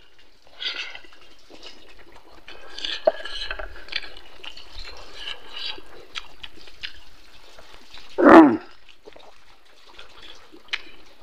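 Close-up wet chewing and lip-smacking of a person eating pork ribs and rice by hand, many small moist clicks and smacks. About eight seconds in, a brief louder pitched mouth sound breaks in.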